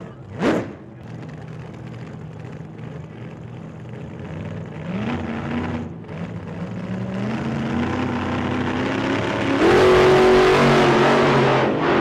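2018 KTM Duke 390's single-cylinder engine accelerating hard through the gears in a tunnel, with tunnel echo. Its pitch climbs in steps with a brief break at a gear change just before six seconds in, and it is loudest and highest near the end. A short, loud rising-and-falling whoosh about half a second in.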